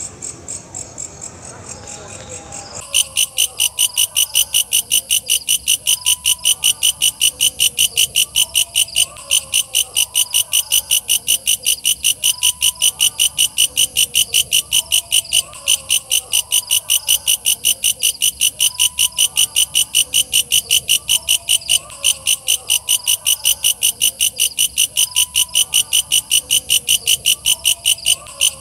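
Walang kecek katydid calling: an even, rapid train of high, shrill pulses, about three a second, starting about three seconds in and broken by a few short pauses.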